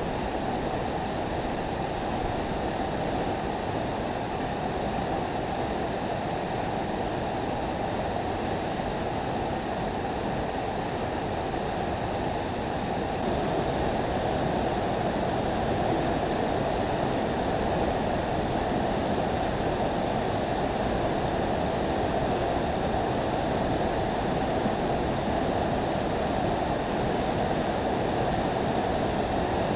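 Steady rush of river water pouring over a spillway, an unbroken noise without distinct splashes, a little louder from about halfway through.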